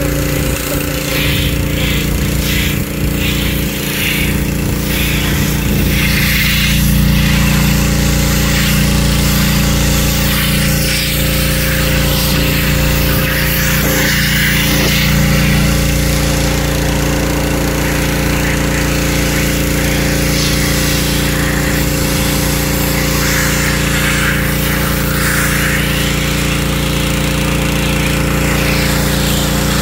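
Pressure washer running steadily with a constant motor hum, its water spray hissing and swelling louder at several moments as the jet plays over the car's bodywork.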